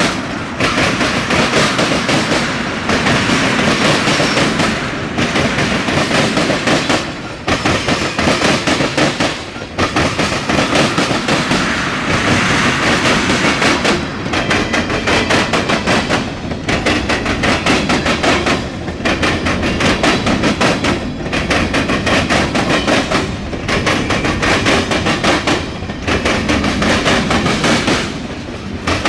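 Norfolk Southern freight cars rolling past close by, their steel wheels clattering and banging over the rails. The clatter dips briefly about every two seconds as each car goes by.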